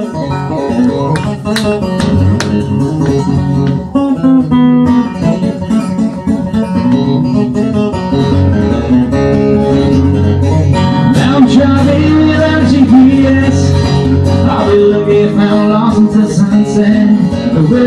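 Acoustic guitar strummed steadily through an instrumental break in a country-style song.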